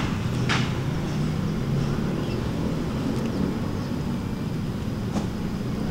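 A cat chewing dry kibble, a few short crunches standing out over a steady low background rumble.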